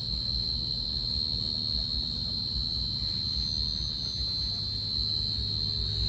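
Steady high-pitched trill of crickets, with a low hum underneath.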